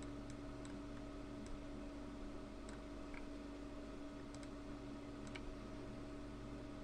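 Computer mouse clicking: about ten short, sharp clicks spaced irregularly while spline points are placed, over a steady low hum.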